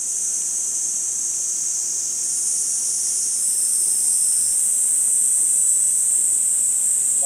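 Chorus of cicadas: a dense, steady, high-pitched buzz that grows fuller about two to three seconds in.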